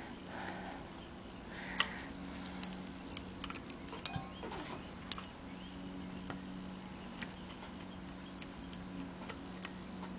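Scattered light clicks and taps of small metal parts as clarinet keys are unscrewed from their pivot screws and set down, the sharpest about two seconds in, over a steady low hum.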